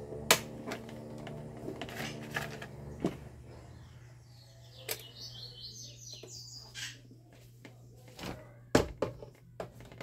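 Scattered plastic clicks and knocks as a fan's oscillation gearbox is handled and fitted onto the motor housing, over a steady low hum that thins out a few seconds in.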